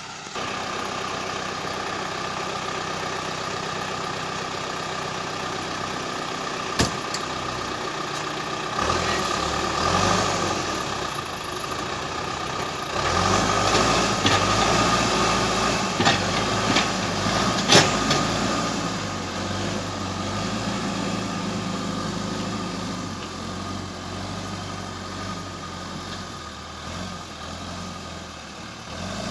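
John Deere 310E backhoe's diesel engine running, revving up under load about a third of the way in and working hard for several seconds before settling back toward idle. A couple of sharp metal knocks ring out, one near the middle.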